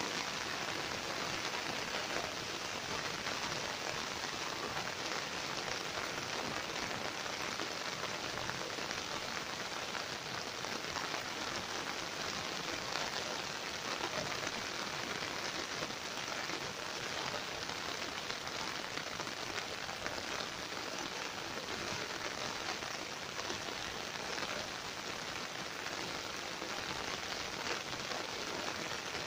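Steady rain falling, an even wash of drops that keeps on without a break.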